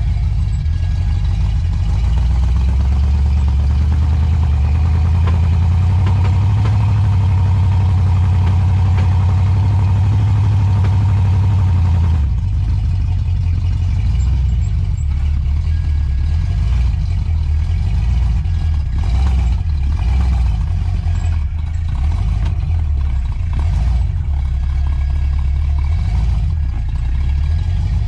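Lifted 4x4 truck's engine running at low speed under load as it crawls over a rocky ledge: a steady low drone that swells, cuts back sharply about twelve seconds in, then rises and falls with the throttle.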